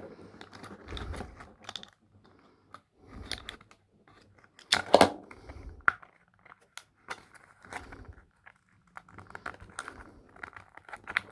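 Toy packaging being handled and rummaged through: cardboard and plastic rustling, scraping and clicking in irregular bursts, with a louder crackle about five seconds in.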